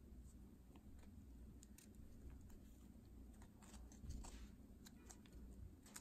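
Faint rustling and small scattered clicks of a nylon watch strap being threaded through its steel buckle and pulled snug on the wrist, with a brief louder rustle about four seconds in.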